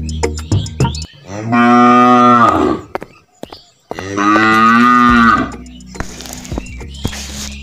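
A cow mooing twice, two long calls a little over a second apart.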